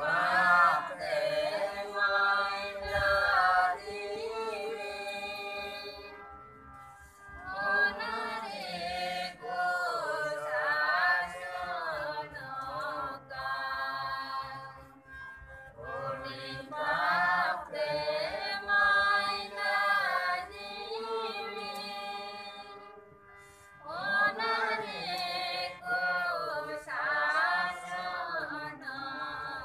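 A congregation singing a hymn together to an electronic keyboard accompaniment, in four phrases of about six seconds each with short breaks between them.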